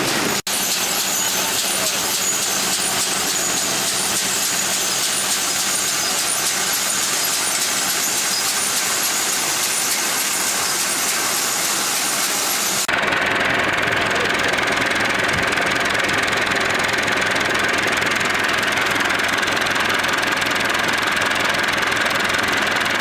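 Engine-driven farm harvesting machinery running steadily. The sound changes abruptly about 13 seconds in to a brighter, steadier machine tone.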